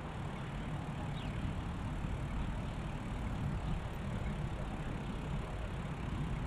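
Steady wind rumble on the microphone of a camera riding on a moving electric bike, with an even hiss from the tyres rolling on the paved path.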